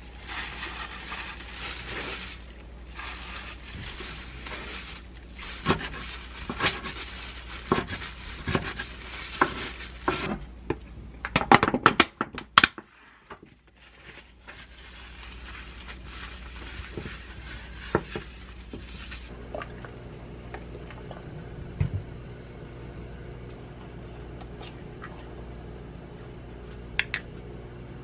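Kitchen prep handling: wet cut kimchi scraped and pressed into a glass food container, then a quick run of sharp clicks a little before halfway as the container's snap-lock lid is latched. In the later part a steady hum sets in under a soft sizzle of an egg frying in oil in a non-stick pan.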